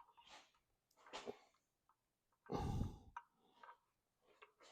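A few faint clicks of small parts being handled, and a single breath out lasting about half a second, a little past the middle.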